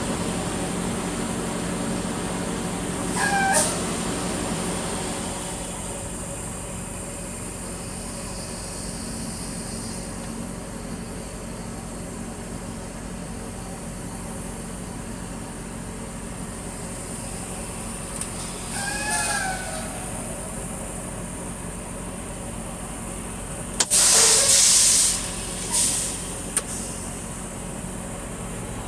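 Tractor-trailer engine running steadily, with brief high brake squeals about three seconds in and again near 19 seconds. Loud hisses of air brakes come about 24 seconds in, with a shorter one soon after.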